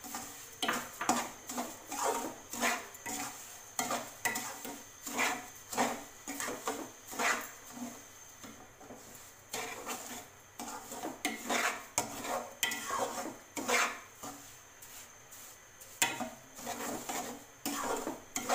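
A slotted metal spatula stirring and scraping through roasted semolina and sugar in a metal kadai, metal scraping on metal with an uneven stroke or two a second and a short lull partway through.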